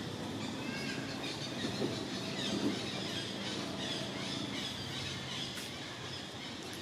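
Many short, high-pitched chirps and squeaks from animals, thickest in the middle of the stretch, over a steady low background hum.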